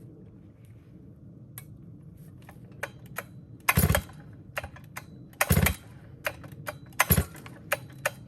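Stihl chainsaw being pull-started: three short hard yanks on the starter cord, about a second and a half apart, with light clicks and knocks in between.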